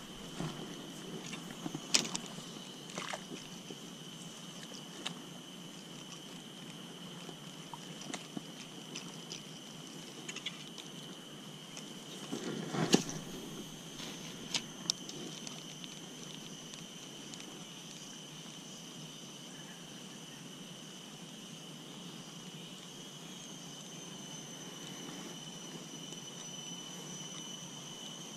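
A steady, high-pitched insect drone throughout, with scattered clicks and knocks from handling a spinning rod and reel, the loudest about 13 seconds in.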